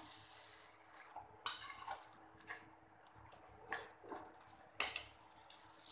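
Metal spoon scraping and knocking against an aluminium kadai as grated bottle gourd is stirred while it fries. There are about six separate knocks at irregular intervals, the last and loudest near the end.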